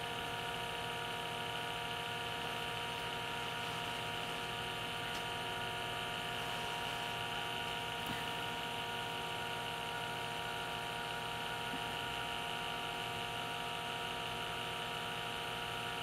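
A small electric motor running steadily, a constant hum and whir with several held tones.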